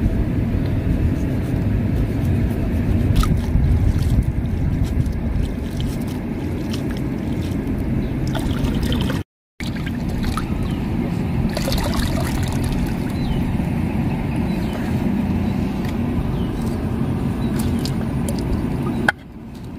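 Light splashing and trickling of hands cleaning a fish in shallow water, with small clicks of handling, over a steady low rumble. The sound cuts out for a moment about halfway through.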